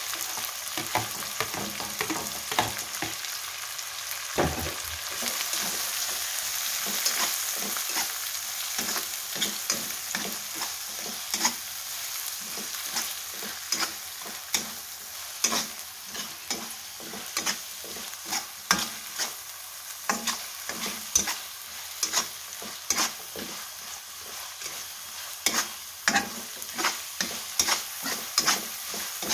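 Chilies, lime leaves and chopped garlic sizzling in hot oil in a wok, with a steady hiss. A metal spatula scrapes and clacks against the pan as the mix is stirred, the strokes sparse at first and then coming one or two a second.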